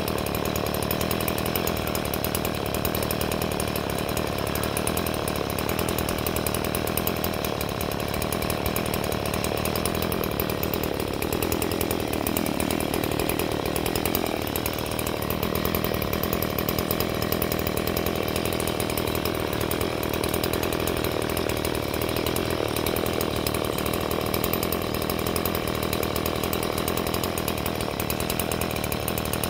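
Small Stihl two-stroke chainsaw idling steadily, with a brief change in its engine note about halfway through.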